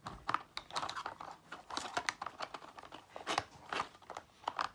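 Irregular plastic clicks and rattles of hands working the clear plastic lids of a toy-car carry case, with the small toy cars inside shifting.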